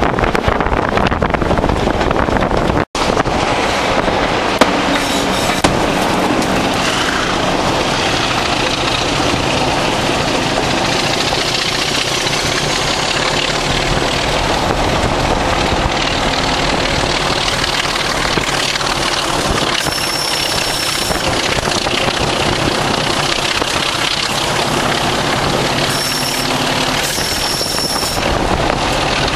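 A Class 37 and a Class 26 diesel locomotive working hard together, the English Electric V12 and the Sulzer six-cylinder engines' exhaust thrash heard from a carriage window behind them, mixed with wheel and rail noise and rushing air. The sound drops out for an instant about three seconds in, and a high thin squeal comes and goes near the end.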